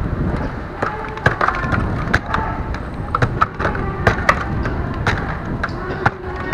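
Irregular sharp clicks and knocks, several a second, of hard objects clattering against each other.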